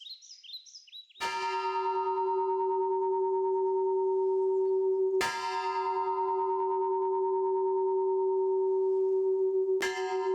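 A bell made from an old oxygen cylinder struck three times, about four seconds apart, each strike ringing on with a long, clear, mellow tone. Birds chirp briefly before the first strike.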